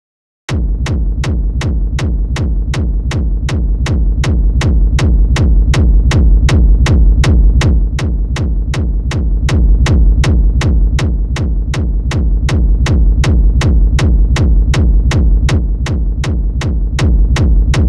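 Hard techno kick drum looping on a steady beat, about two and a half hits a second, heavy in the deep bass. It is running through a one-knob rack (an EQ boost near 55 Hz, analog-clip saturation, and a bass-mono utility) while the knob is being turned up.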